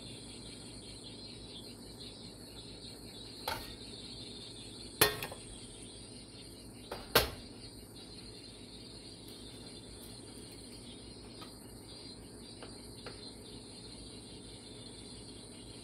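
Three sharp kitchen knocks, like hard objects set down on a counter or stovetop. They come a second or two apart, the second and third the loudest, over a steady high-pitched background hiss.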